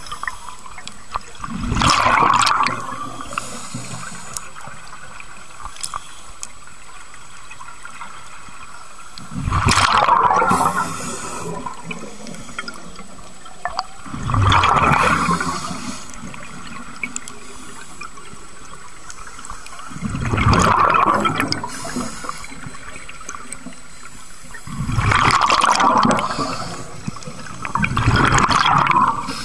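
Scuba diver breathing underwater through a regulator: six rushes of exhaled bubbles, each about a second and a half long, several seconds apart, with a steady quieter water hiss between them.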